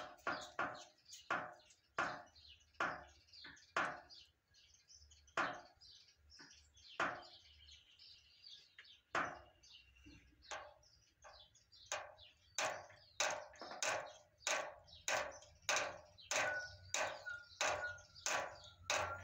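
A long series of short, sharp clicks: quick and irregular at first, sparse in the middle, then steady at about two a second over the last several seconds.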